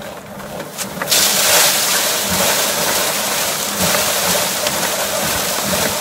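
Small engine-driven rice thresher running with a steady hum. About a second in, a loud, steady rushing hiss sets in as a bundle of rice stalks is fed into the spinning drum and the grain is beaten off.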